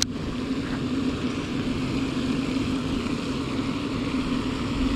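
A steady low mechanical hum over outdoor background noise, with a single sharp click at the very start.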